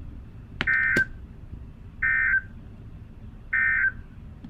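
Weather radio's EAS end-of-message signal: three short bursts of buzzy SAME data tones, about a second and a half apart, marking the end of the broadcast warning. A steady radio hiss runs underneath, and two sharp clicks come with the first burst.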